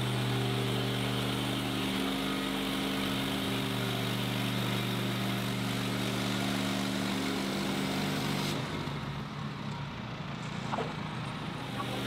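Portable bandsawmill's gasoline engine running at a steady speed. About eight and a half seconds in the sound turns duller and a little quieter, then comes back as before near the end.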